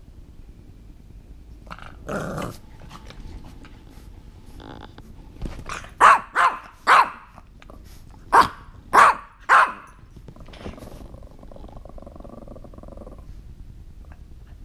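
Dog barking in play: a short bark about two seconds in, then six sharp barks in quick succession between about six and ten seconds in, followed by a lower drawn-out growl.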